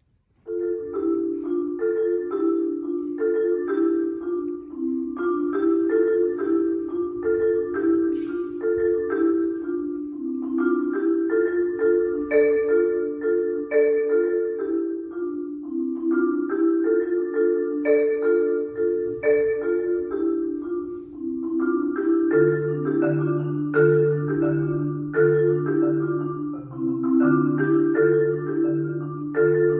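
Solo concert marimba with wooden bars, played with mallets: a quick, repeating pattern of struck notes in the middle register, starting about half a second in. From about two-thirds of the way through, low bass notes are held underneath the pattern.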